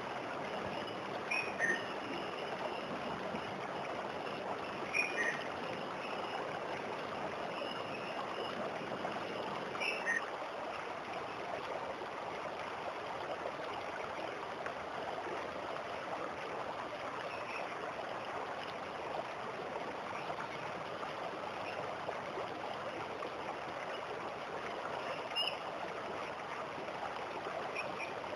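Water rushing steadily down a waterfall, with a few short bird chirps over it.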